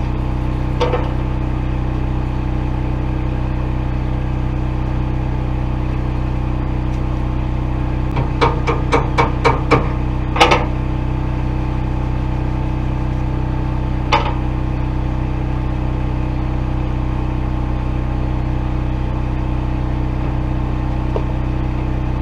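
An engine idles steadily throughout. About eight seconds in comes a quick run of about seven sharp metal taps, then a louder knock, and one more knock a few seconds later: a hammer knocking slag off a fresh weld bead.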